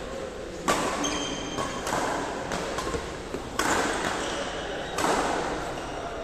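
Badminton rackets striking a shuttlecock in a rally: a series of sharp, irregularly spaced hits, three of them louder, each echoing in the hall. A brief high squeak comes about a second in.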